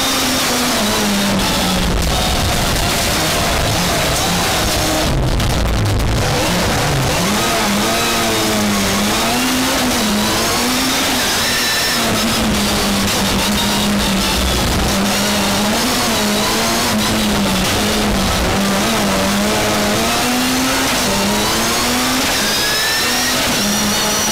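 Rallycross race car's engine heard from inside the cockpit during a flat-out lap, loud throughout, its revs repeatedly climbing and dropping back through gear changes and corners.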